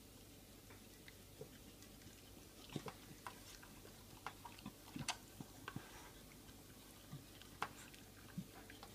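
Beagle eating from a DogIt Go-Slow anti-gulping bowl: irregular clicks and short crunches of chewing and of food and teeth knocking against the plastic bowl, starting a few seconds in.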